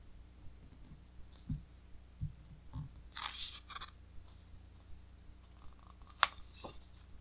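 A page of an oversized Taschen art book being handled and turned by hand: a few soft thumps, a rustling swish as the page lifts about three seconds in, and a sharp paper snap a little after six seconds as it turns over, the loudest sound.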